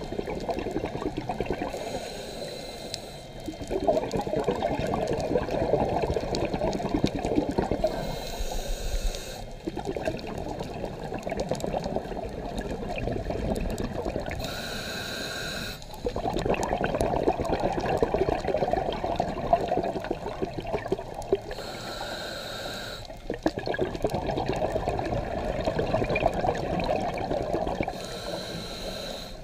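Scuba diver breathing through a regulator, recorded underwater: about five short hisses of inhaled air, one every six or seven seconds, each followed by a few seconds of bubbling exhaust.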